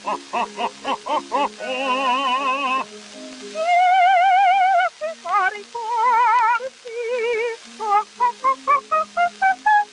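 Operatic singing in a high register with wide vibrato on long held notes, ending in a quick run of short notes climbing in pitch, over a sustained low accompaniment note. An early-1930s cartoon soundtrack.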